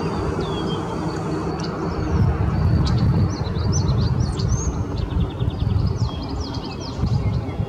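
Birds chirping with short downward-sliding whistles and a quick run of ticks about six seconds in, over a steady low rumble.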